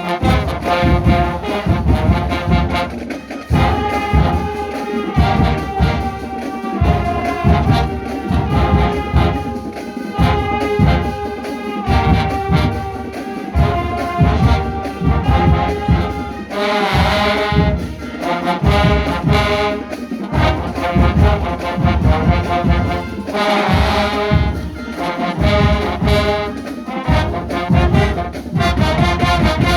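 College band brass section (trombones and trumpets) playing a tune over a steady drum beat, with two bright crashing accents about halfway through and again a few seconds later.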